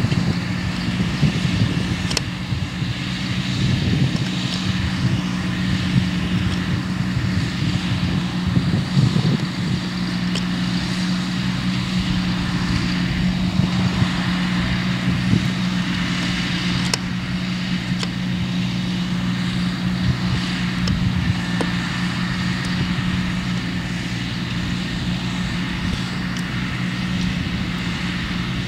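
Valtra T214 tractor's six-cylinder diesel engine running at a steady pitch under load while pulling a mole drainage plough through the ground.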